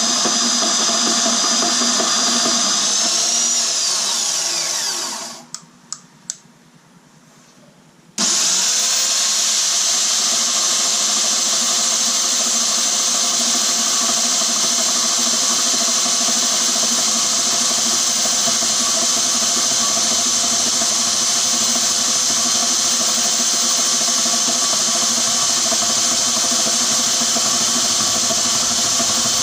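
Burley R2103 bandsaw's electric motor running steadily with a whine; about four seconds in it is switched off and winds down with a falling pitch, a few clicks sound in the short pause, and about eight seconds in it is switched back on, spinning up quickly and running steadily again.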